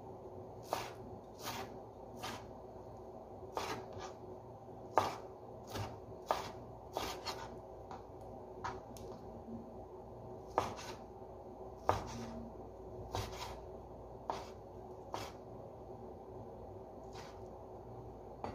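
Kitchen knife chopping raw chicken breast into small pieces on a cutting board: irregular sharp knocks of the blade on the board, about one a second, over a faint steady hum.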